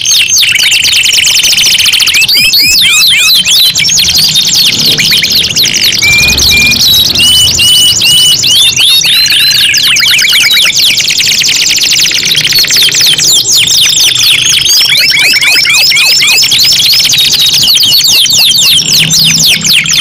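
Domestic canaries singing together, their songs overlapping: a continuous stream of fast, high trills and rolls with held whistled notes mixed in, changing pattern every second or two.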